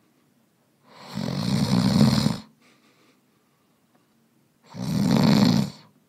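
A man snoring: two loud snores about four seconds apart, the first about a second and a half long and the second about a second.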